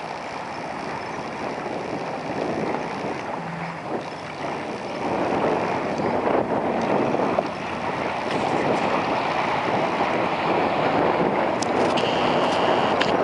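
2016 Skeeter ZX190 bass boat's outboard motor running at speed as the boat turns and runs across choppy water, mixed with wind buffeting the microphone and the hiss of spray and waves. It grows louder from about five seconds in.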